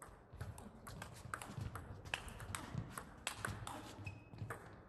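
Table tennis rally: the plastic ball clicking off the rackets and the table in quick, uneven succession, with players' footsteps shuffling on the court floor underneath.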